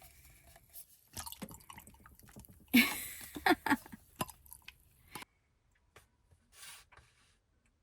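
A person chewing food, with scattered small clicks and wet mouth sounds, the busiest stretch about three seconds in; the sounds stop about five seconds in.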